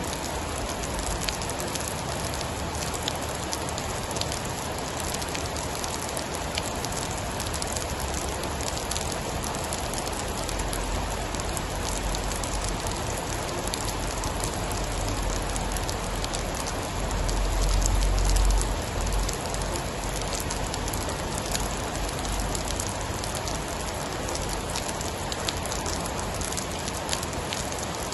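Steady heavy rain pattering on surfaces, with many sharp drop ticks. A low rumble of distant thunder swells and fades about two-thirds of the way through.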